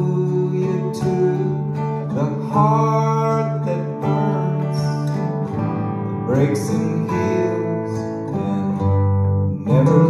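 Live song music: acoustic guitar and electric guitar playing with a bowed cello, swelling notes coming in every couple of seconds over a steady low part.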